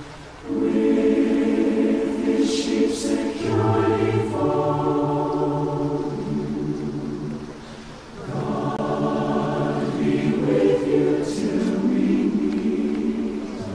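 Choir singing unaccompanied in harmony, long held chords in slow phrases; the singing fades and breaks briefly about eight seconds in, then the next phrase begins.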